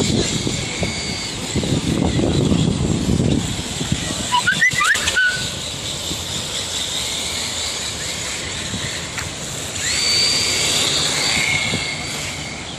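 Radio-controlled drift cars driving on asphalt, their motors giving a thin high whine. The pitch glides up and down quickly about four to five seconds in, then a fresh rising whine starts about ten seconds in. A low rushing noise runs under the first three seconds.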